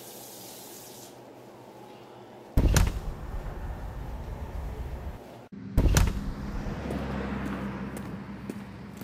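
A tap's running water hisses and stops about a second in. Two heavy door thuds follow, about three seconds apart. After the second comes a low outdoor rumble with light footsteps.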